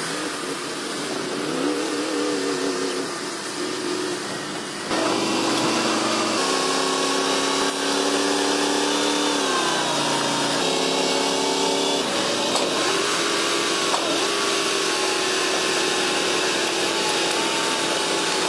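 Heavy diesel engines of bulldozers running and revving under load, their pitch rising and falling as the throttle changes. It gets louder about five seconds in.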